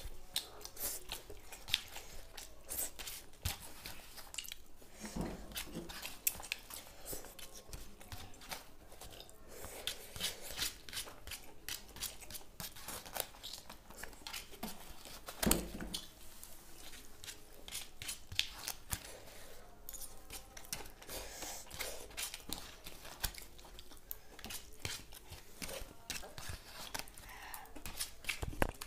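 Eating at a table: spoons scraping and tapping foil paper plates amid chewing, a quick run of small clicks and crinkles. One louder thump about halfway through.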